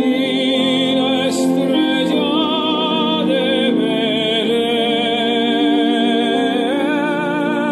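Small sheep-shaped toy speaker playing music: a voice singing a slow melody with wide vibrato over sustained accompaniment.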